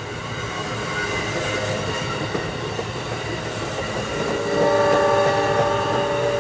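Amtrak passenger train running by with steady rail and wheel noise. About four and a half seconds in, the locomotive's K5LA five-chime air horn begins a long blast.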